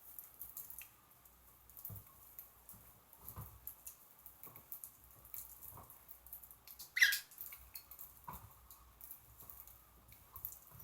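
Pet birds pecking and cracking millet seed: faint, irregular small clicks and ticks, with one brief louder sound about seven seconds in.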